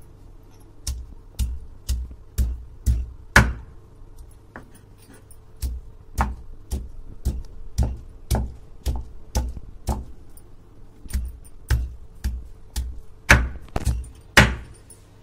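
Stone batta pounding small whole potatoes, skins on, against a sil-batta grinding stone: sharp knocks with dull thuds, about two a second, with a short lull about four seconds in and the hardest blows near the end. The potatoes are being crushed coarsely rather than ground fine.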